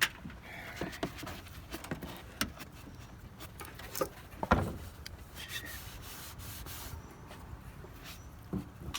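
Rubbing and scraping with scattered clicks and knocks, the loudest knock about four and a half seconds in.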